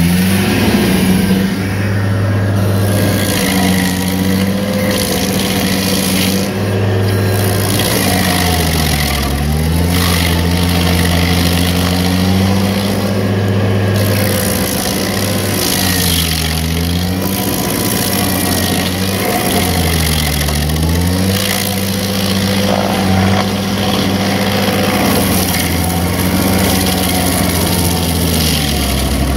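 Vermeer 502 stump grinder running steadily at full speed while its cutter wheel grinds into a tree stump. The engine note sags briefly and recovers about four times as the wheel bites into the wood under load.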